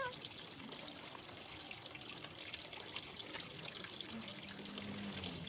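Water trickling and splashing in a big plastic bin that people are soaking in: a steady patter of small drips and splashes.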